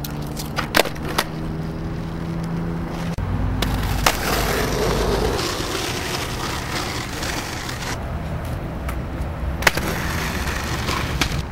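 Skateboard wheels rolling on pavement, with several sharp clacks of the board popping and landing. A low steady hum sounds for about the first three seconds, then stops.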